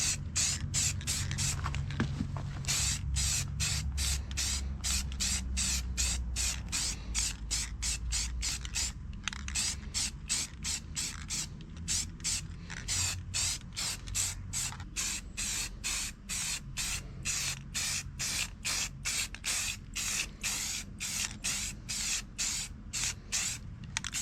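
Liquid being sprayed in quick, even pulses, about two to three hisses a second, over a low steady hum.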